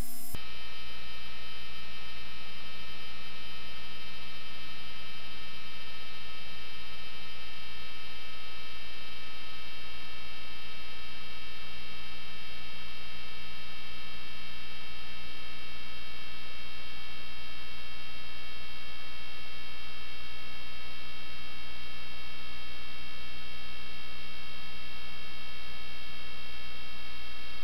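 Steady electrical hum with a cluster of high, steady whining tones, unchanging throughout, from a sewer inspection camera system's recording.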